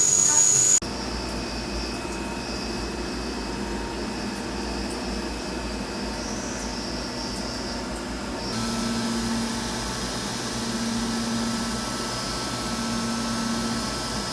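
CNC machine running: a steady mechanical noise with a low rumble and a thin high whine. The sound changes a little past halfway, when a lower hum starts to come and go. It cuts in abruptly less than a second in, replacing a different sound.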